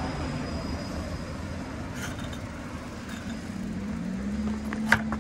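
Street traffic: a steady low rumble of vehicles. About four seconds in, an engine hum rises a little in pitch and holds, and a single sharp click sounds near the end.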